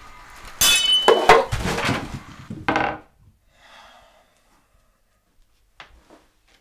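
A bowl and an armful of breakfast things dropped, clattering onto a kitchen floor: a burst of knocks and clinks lasting about two seconds, with a brief ringing note near the start. A faint rustle and a small knock follow.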